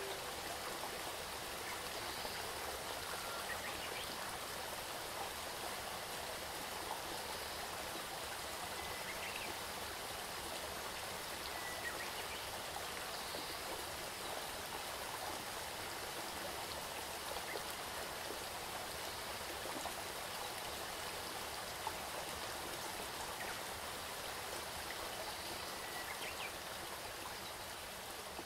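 Steady running-water ambience like a flowing stream, an even rushing hiss, with a few faint short chirps now and then.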